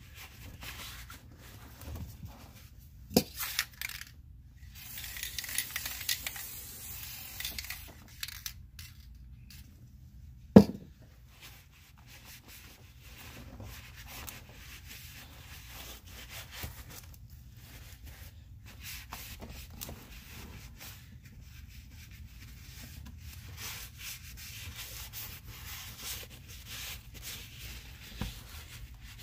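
Hand cleaning of an old GE bench grinder's outer housing: intermittent rubbing and scrubbing, with a denser stretch a few seconds in. A few sharp knocks come through, the loudest about ten seconds in.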